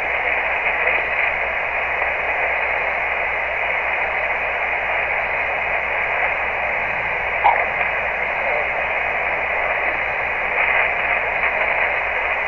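Steady static and band noise from an HF transceiver's speaker tuned to 14 MHz upper sideband, the hiss filling the narrow voice passband with no clear station in it. A brief faint blip about halfway through.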